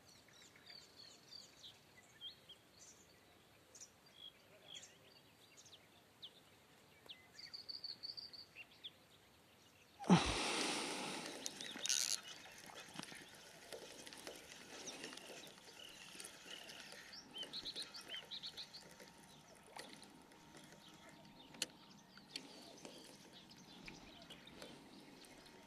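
Sparse chirps and a short trill from small birds. About ten seconds in, a louder rustling hiss with handling noise begins as a spinning reel is wound in, bringing a hooked bream to the bank.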